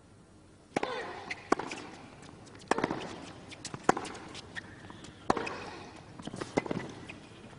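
Tennis rally on a hard court: a tennis ball struck back and forth by racquets and bouncing, a sharp pop about every second or so, starting about a second in.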